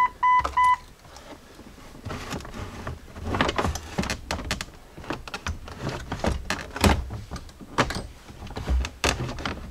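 An electronic warning chime beeping about three times a second stops about a second in; after that come irregular plastic knocks, clicks and scraping as the Jeep Cherokee XJ's plastic center console is worked loose and lifted out over the shifters.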